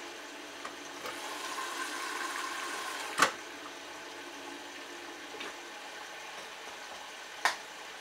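Bosch Logixx WAS32461GB washing machine taking in water at the start of its cycle: a steady hiss of inflowing water that swells for about two seconds and ends with a sharp click about three seconds in, with a second sharp click near the end.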